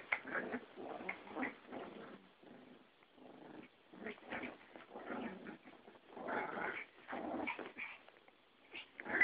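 A Yorkshire terrier and a Pomeranian play-fighting, growling in short irregular bursts with a couple of brief lulls.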